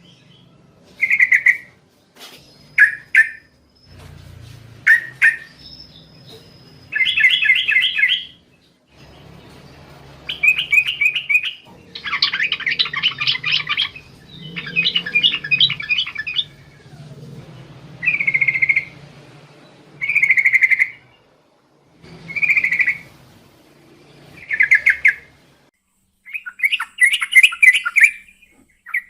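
Yellow-vented bulbul (trucukan) singing: short bubbly phrases about every two seconds, broken by several longer rapid rolling runs of notes in the middle and near the end.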